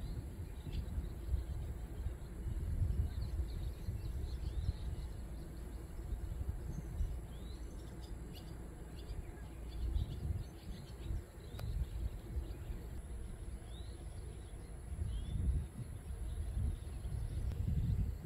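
Outdoor ambience under an approaching summer thunderstorm: a low, uneven rumble that swells and fades, with birds chirping now and then throughout. A thin, steady high whine sounds for a few seconds near the end.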